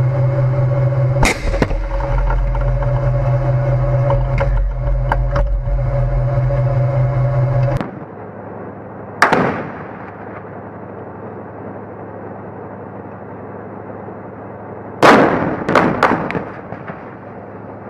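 A tank's engine drones steadily, heard from a camera mounted on the turret, with a few sharp cracks of gunfire over it. The drone cuts off about eight seconds in. After that a single loud bang comes about a second later, and a quick cluster of three bangs of weapons fire and explosions comes near the end.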